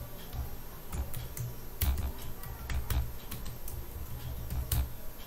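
Computer keyboard typing: a run of irregularly spaced keystroke clicks as a password is keyed in.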